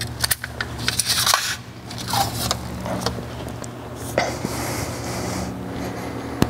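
Steady low hum of a workshop with scattered short scrapes, rustles and clicks of handling, as a clipboard and pen are handled and written on.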